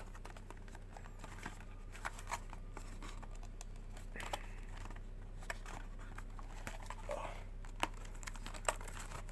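Panini Prizm football hanger box being handled and opened by hand: scattered light clicks and taps of cardboard and packaging, with brief crinkling rustles about four seconds in and again around seven seconds.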